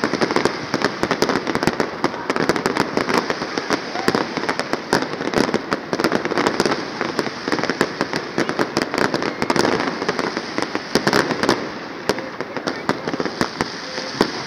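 Fireworks display: aerial shells bursting in a rapid, continuous string of bangs and crackles.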